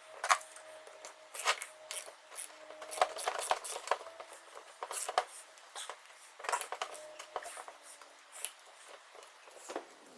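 Small metal parts and hand tools being handled: an irregular run of light clicks, knocks and scrapes, a few every second, with brief pauses.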